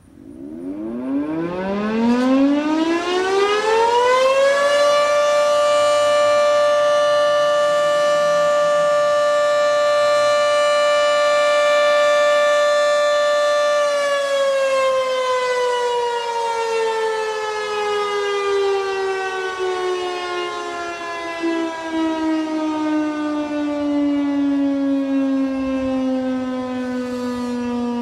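Federal Signal 3T22A dual-tone outdoor warning siren on an alert (steady) blast. It winds up from silence to a steady chord over about four seconds, holds it for about ten seconds, then winds slowly down in pitch for the rest of the time.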